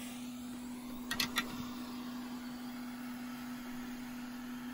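A steady low hum with a faint even hiss, and three quick clicks about a second in.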